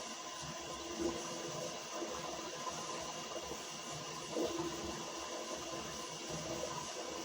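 Toilet running with a steady watery hiss and light gurgling, swelling briefly about a second in and again a little past four seconds.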